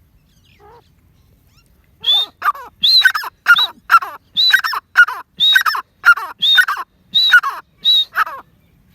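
Gray francolin calling: a faint note, then from about two seconds in a loud, rapid run of harsh, shrill repeated phrases, about two a second, stopping shortly before the end.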